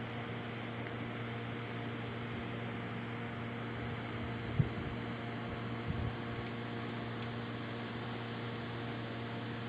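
A steady low hum with a hiss behind it, broken by one sharp click about halfway through and a softer knock a second later.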